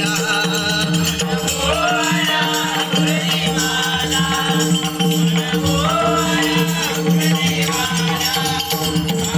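Devotional music: a sung melody sliding up and down over a steady held drone, with a continuous shimmer of percussion on top.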